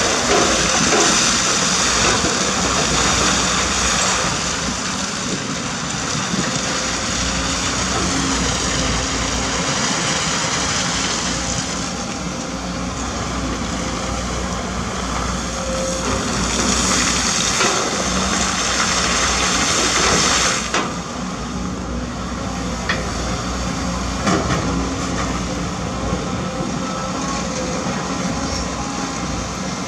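Caterpillar 320D2 GC excavator's diesel engine running steadily under digging load, with a high hydraulic whine that rises during the working strokes and drops away suddenly about 21 seconds in. Scattered knocks of the steel bucket on wet gravel.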